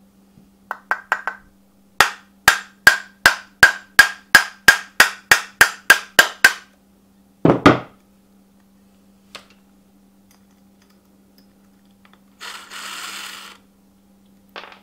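Hammer striking metal, most likely a punch driven against the sander motor's shaft and fan: a few light taps, then about a dozen even, ringing blows at roughly three a second, followed by one heavier thud. Later comes about a second of scraping noise, with a faint steady hum underneath.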